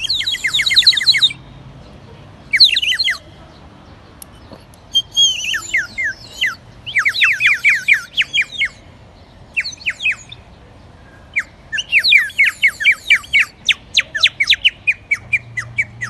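Water-filled clay bird whistle blown in short bursts, giving a warbling trill of rapid falling chirps with pauses between phrases, and a longer run of fast chirps in the second half.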